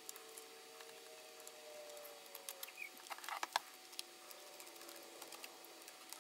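Faint small clicks and scratches of a precision screwdriver turning out small screws from the back edge of a MacBook's case, with a quick cluster of clicks about three seconds in.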